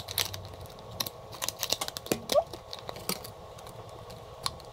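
Scattered light plastic clicks and taps as the plastic canopy of a Blade 120 S2 micro RC helicopter is handled and pressed onto its frame, with a short rising squeak about halfway through.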